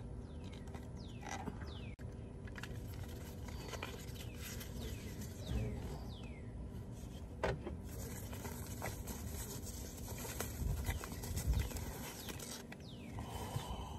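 Packaging being handled: a small cardboard box opened and the plastic bag around a gauge rustling and crinkling, loudest in the second half, with a few handling knocks. A few short falling bird chirps sound in the background during the first half.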